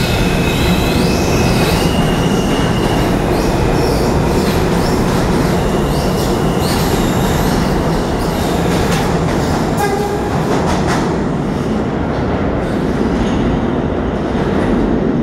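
R160 subway train pulling out of an underground station and running off into the tunnel: a loud, steady rumble of steel wheels on rail, with high wheel squeals at times in the first half and a short run of clicks about ten seconds in.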